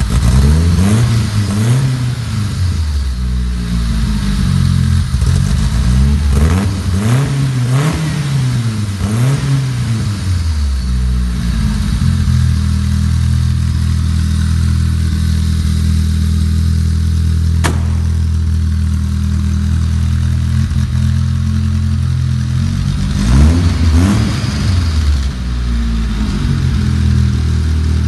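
The engine of a 1970 Brazilian Karmann Ghia, swapped into the rear bay, is revved in a string of quick blips for the first ten seconds or so, then settles to a steady idle. Two more blips come about two-thirds of the way through. A single sharp click sounds during the idle.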